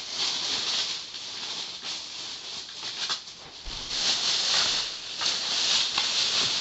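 Rummaging: a steady rustling and light rattling of things being pushed around while someone searches for a toy, swelling and fading, louder in the second half, with a couple of faint clicks.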